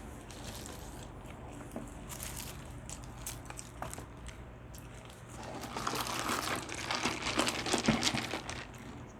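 Food wrapper crinkling and rustling as it is handled, faint with a few small clicks at first, then a busy spell of crackling and rustling over the last few seconds.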